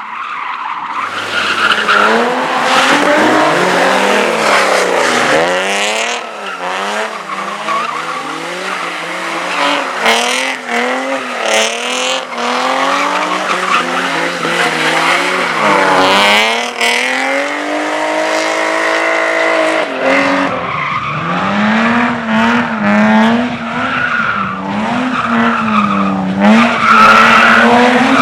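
A car being driven hard in drift and slalom runs: the engine revs up and drops again over and over, with tyres squealing and skidding. About two thirds of the way through the revs climb and are held high for a few seconds, as in a sustained drift or wheelspin.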